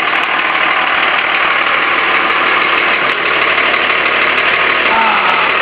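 5.9-litre 24-valve Cummins inline-six diesel engine idling, with a steady rushing noise over it.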